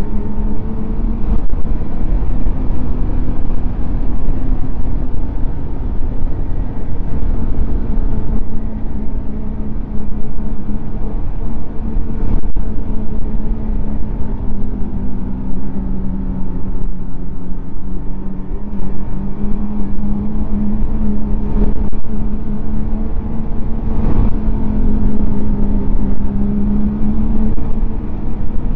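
Snowmobile engine running steadily at cruising speed, its pitch rising and dipping a little, over a low rumble, with a few brief knocks.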